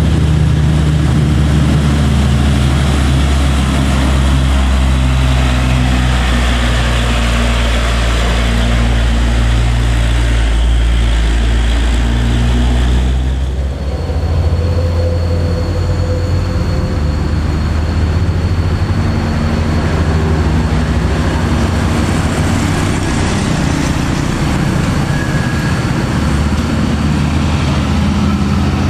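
Diesel engines of Hino 500 trucks working up a steep hill road, a steady low engine drone; about halfway through it changes over to a second truck's engine.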